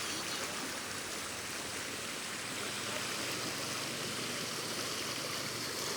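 Steady rush of fast-flowing river water, swollen after heavy rain.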